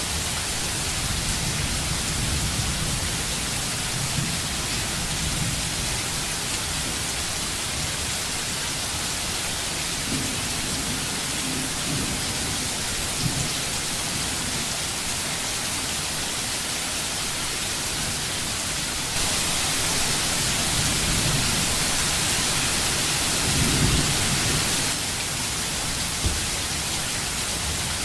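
Steady rain with low rumbles of thunder now and then; the rain grows louder for several seconds about two-thirds of the way through, then eases.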